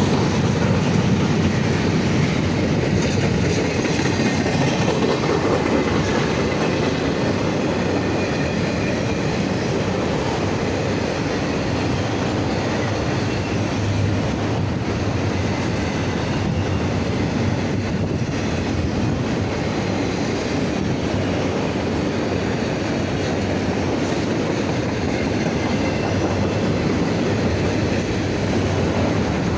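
Freight train cars rolling past, a steady rumble and clatter of steel wheels on the rails.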